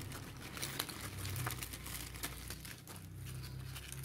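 Crinkling and rustling of paper and plastic food wrapping being handled, in scattered short crackles over a low steady hum.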